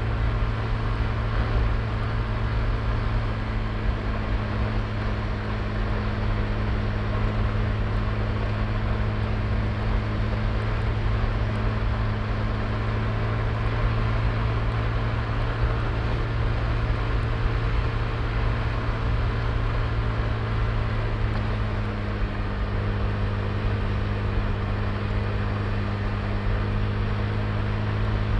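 Honda Click i scooter's small engine running steadily while riding, with road and wind noise. There is a slight dip in level and pitch about three-quarters of the way through.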